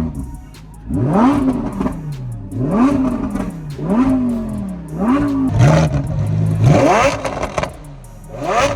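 Lamborghini Huracán Evo's V10 engine, in Corsa mode, revved hard while parked in about six quick blips, each rising sharply and falling back. A held higher-rpm stretch comes past the middle. Crackles and pops from the exhaust sound on the overrun between revs.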